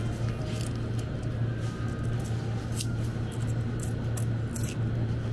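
Convenience-store background sound: a steady low hum with scattered light clicks and rustles.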